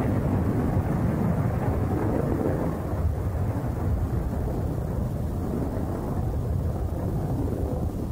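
Rocket engine rumbling during ascent: a steady low, noisy rumble whose higher part slowly fades as the rocket climbs away.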